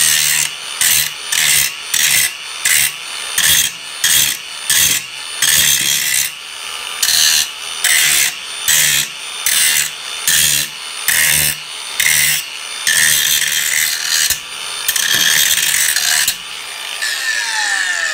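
Makita GA504D 18V cordless angle grinder switched on and off in short pulses, about two a second, then run for two longer spells of a second or so. Near the end it is released and winds down with a falling whine.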